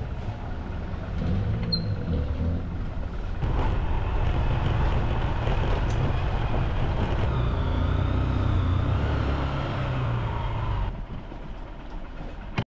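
Motor-vehicle traffic: engines running with a steady low rumble and road noise. It grows louder about three and a half seconds in and drops back near the end.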